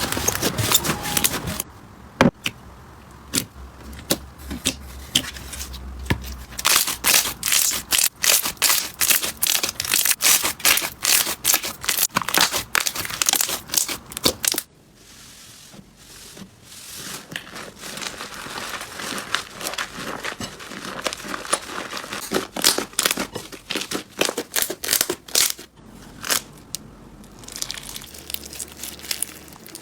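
Slime being squeezed, pressed and stretched by hand: dense crackling and popping clicks. The texture changes abruptly a few times, with a quieter stretch of softer crackles about 15 seconds in.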